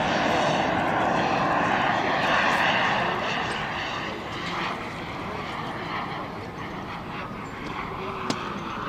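Radio-controlled BAE Hawk model jet's turbine engine in flight: a steady jet rush that is loudest for the first few seconds and then eases off as the model flies on. A single sharp click near the end.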